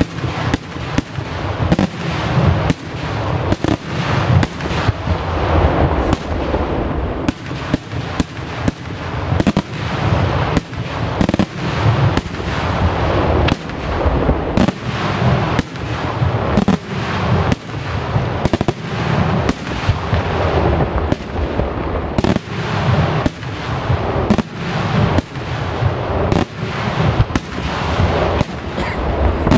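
Daytime fireworks firing a dense barrage of bangs, several a second without a pause, over a steady low rumble.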